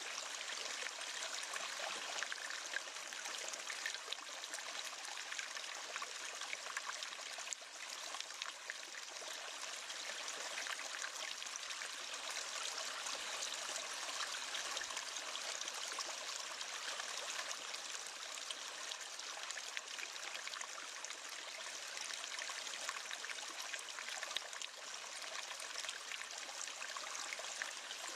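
A river or stream flowing steadily, a continuous rush of water with light splashing and gurgling detail.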